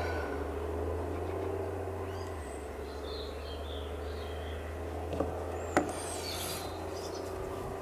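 Quiet outdoor background with a steady low hum, a few faint chirps, and two light clicks a little after five seconds and near six seconds in.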